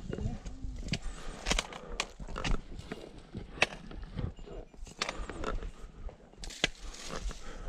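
Footsteps and trekking-pole tips striking a rocky stone-step mountain trail: irregular sharp clicks and knocks, about one or two a second, as a hiker climbs.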